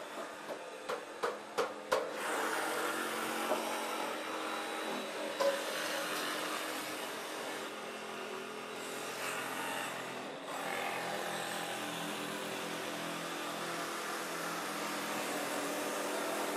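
Cordless jigsaw cutting a wooden stair stringer, a steady power-tool hum, with a quick run of about six sharp knocks on wood about a second in.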